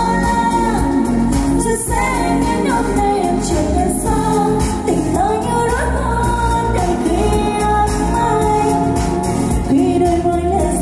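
Background music: a song with a singing voice over a continuous instrumental backing.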